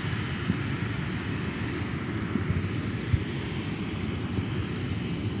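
Boeing 737-800's CFM56 turbofan engines running at taxi power as the jet rolls slowly: a steady low rumble with a hissing whine above it. A few brief low knocks break through it in the middle.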